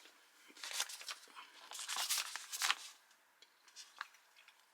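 Foil ration pouch packaging crinkling and rustling as it is handled, in a few bursts, followed by a few light clicks near the end.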